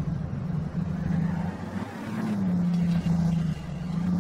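Simulated engine sound of a tow truck in a driving video game: a steady low drone whose pitch steps up and down a little as it drives.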